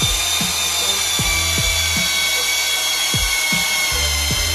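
Corded electric hammer drill running continuously with a high, steady motor whine while boring straight down.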